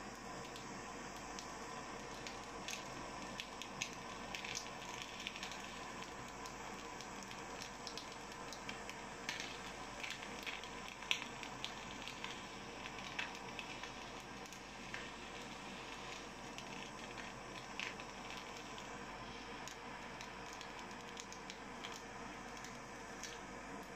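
Handheld kitchen blowtorch hissing steadily as its blue flame sears raw monkfish pieces, with the fish crackling in short sharp snaps all through.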